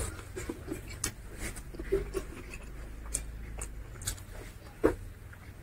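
Close-up chewing and lip-smacking of a man eating rice and curry by hand, with scattered mouth clicks and smacks; the sharpest smack comes near the end.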